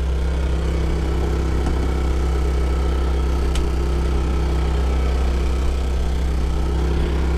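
An engine idling steadily, an even low hum that does not change.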